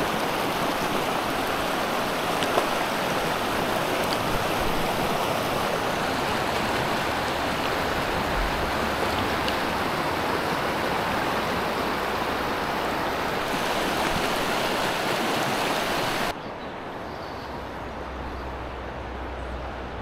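A shallow river flowing over stones, a steady rush of water. About sixteen seconds in it drops away abruptly, leaving a quieter low rumble.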